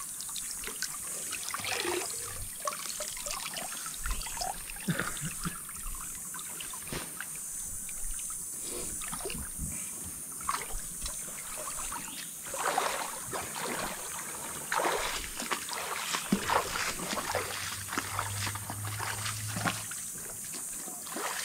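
Shallow river water trickling and splashing, with many irregular small splashes and knocks over a steady high hiss.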